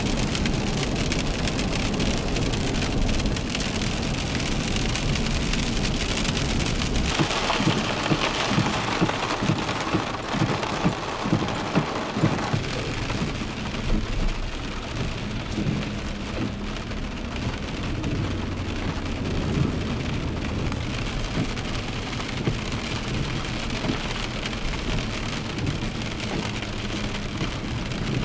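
A low, steady rumble, then from about seven seconds in, heavy rain hissing and splashing on a wet, flooded street.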